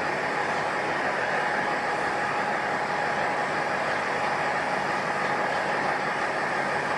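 Noto Railway diesel railcar idling at the platform: a steady engine drone with a faint steady whine over it.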